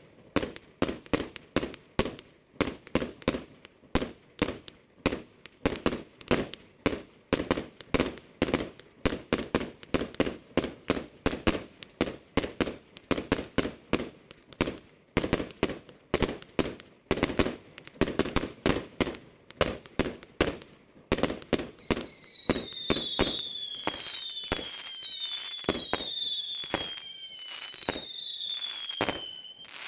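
100-shot, 20 mm consumer fireworks cake (Triplex TXB521 'The Best') firing a rapid string of shots, about three bangs a second. About two-thirds of the way in, falling whistles start over the bangs, and everything stops abruptly at the end as the cake burns out.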